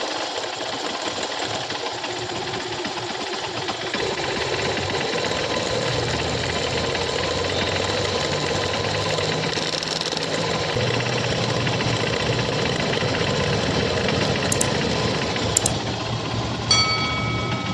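Honda Shine's 125 cc single-cylinder engine running with a fast, steady metallic rattle, the timing chain noise of a slack or worn cam chain. The engine gets louder about four seconds in.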